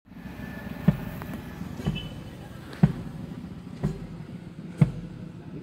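Marching band bass drum beating a slow, steady pulse, about one stroke a second, before the band starts to play.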